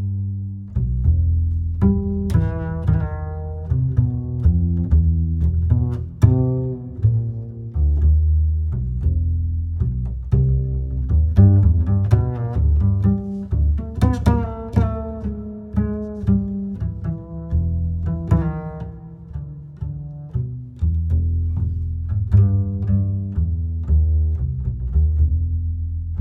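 Instrumental background music: a low bass line stepping from note to note under plucked melody notes that ring and fade.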